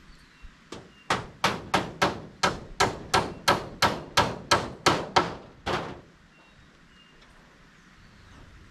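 Hammer blows on metal roof cladding, each strike ringing briefly: a steady run of about sixteen strikes, roughly three a second, starting about a second in and stopping near six seconds, as the sheet is nailed down to the timber frame.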